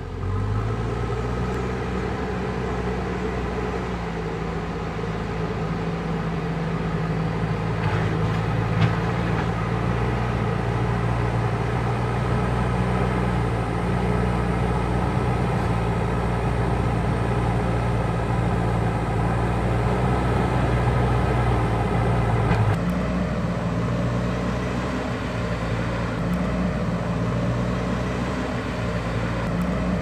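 JCB backhoe loader's diesel engine running steadily under load as the machine moves along a dirt track, its front bucket pushing soil. There is a single knock about nine seconds in, and the engine's sound shifts abruptly about three-quarters of the way through.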